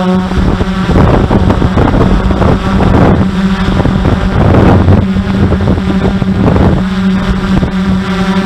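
Steady, even-pitched motor hum with overtones. Gusts of wind noise buffet the microphone through most of the middle and ease off near the end.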